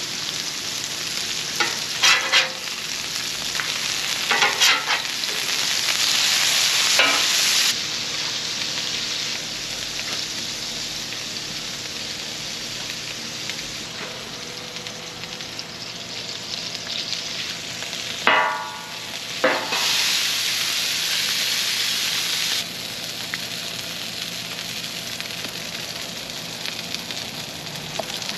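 Beef smash burger patties sizzling steadily on a hot gas flat-top griddle. A metal spatula scrapes sharply on the griddle steel several times, twice close together near the middle.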